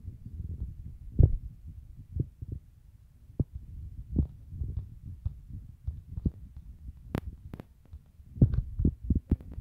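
Handling noise on a phone's built-in microphone while the phone is held and its screen scrolled: a low rumble with irregular dull thumps, a cluster of them near the end, and two sharp clicks about two-thirds of the way in.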